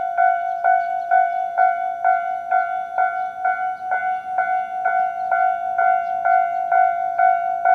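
Japanese railway level-crossing alarm sounding its standard electronic warning tone: an evenly repeated bell-like ding, a little over two strikes a second.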